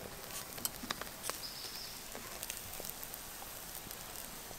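Faint crackling and sizzling of paneer tikka skewers roasting on a wire grill over an open wood fire in a clay stove, with many scattered sharp pops.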